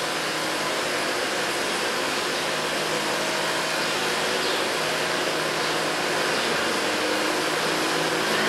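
Steady hiss with a low hum underneath that wavers slightly in pitch, like a small motor running.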